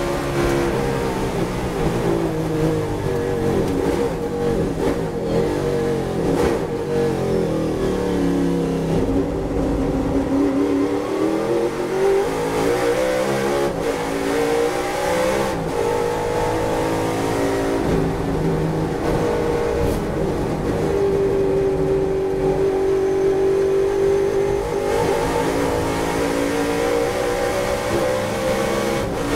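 Ford Falcon touring car's V8 engine heard from inside the cockpit at racing speed. It comes off full throttle and winds down through the downshifts while braking for a corner, then revs up hard again through several upshifts, each one a short break in the rising pitch.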